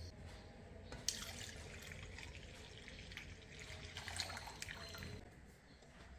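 Coconut milk pouring in a steady stream from a plastic jug into a pan of cocoa, flour and condensed milk. It starts with a click about a second in and stops after about four seconds.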